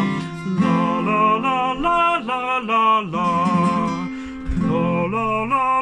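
A singer running broken-chord vocal warm-up arpeggios on 'la', in short stepped notes going up and down, over held guitar chords.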